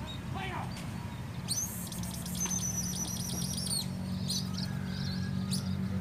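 A flock of munias chirping: a dense run of high, rapid calls from about a second and a half in until nearly four seconds, then a few single chirps. A low steady hum sits underneath from about two seconds in.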